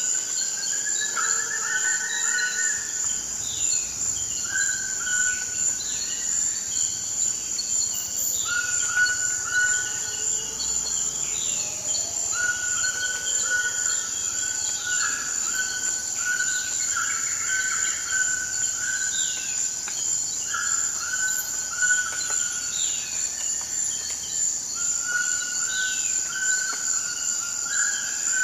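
Forest ambience: a steady high insect drone with birds calling over it, short repeated notes and quick falling chirps recurring throughout.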